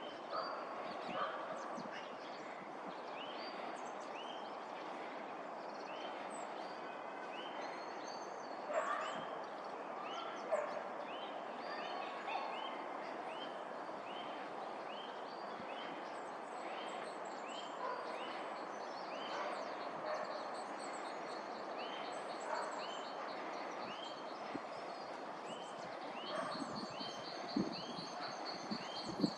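Birds calling outdoors: one bird repeats a short call about once a second, over a steady background hiss, and a fast high trill joins near the end.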